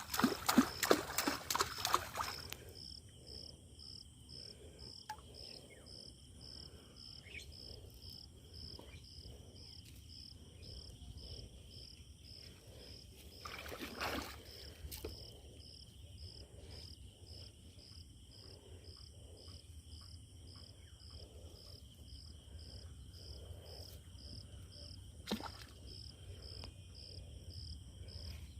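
An insect chirping steadily in an even rhythm of about two high chirps a second over a quiet outdoor background. It is preceded in the first couple of seconds by a cluster of sharp knocks and splashy handling noise, with a brief rustling burst about halfway through.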